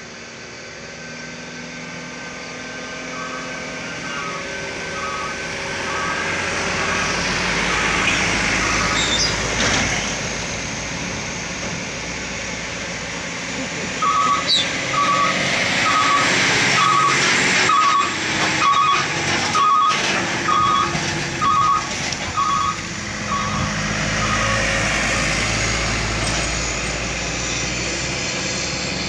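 Heavy diesel container trucks climbing slowly uphill, their engine sound swelling as they draw near. A two-tone electronic warning beeper on a truck sounds about every half second for a stretch a few seconds in, and again for about ten seconds from halfway.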